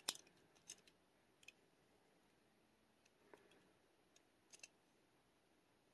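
Near silence with a handful of faint, scattered clicks and taps, the first and loudest right at the start: a small die-cast toy car and its torn plastic packaging being handled.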